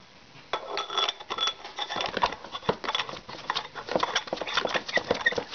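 Rapid small clicks, taps and rustling from hands handling a paintball barrel and marker as the barrel is being fitted to the gun. The handling starts about half a second in.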